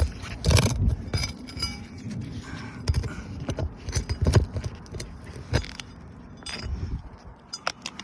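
Metal tools clinking and scraping against roof shingles and nails in irregular knocks and scrapes, as old nails are pried out.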